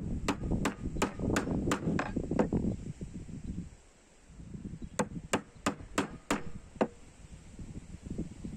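Homemade wooden mallet striking the handle of a bench chisel to chop a small mortise in wood, in two runs of quick sharp taps about three a second: eight, a pause, then six more.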